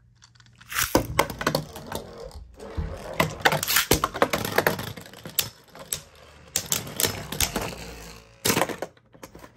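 Two Beyblade Burst spinning tops in a plastic stadium, whirring and clashing against each other and the stadium walls in a rapid clatter of clicks. The clatter starts suddenly, just under a second in, and dies away near the end after one last hard clash.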